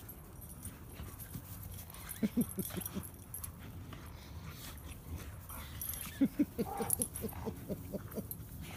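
Dogs playing rough together, making short, rapid vocal sounds in two clusters: about two seconds in, and again from about six seconds in.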